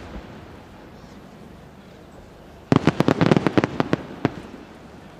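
Aerial fireworks: a cluster of small shells bursts about three seconds in as a rapid string of a dozen or so sharp bangs over about a second and a half, with echo trailing after. At the start, the echo of an earlier shell burst is dying away.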